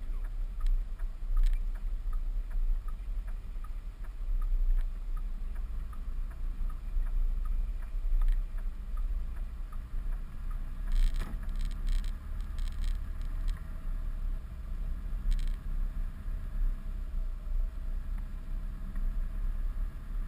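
Steady low rumble of engine and road noise heard from inside a following vehicle's cab. A light regular ticking runs about twice a second through the first half, and a few brief clatters come just past the middle.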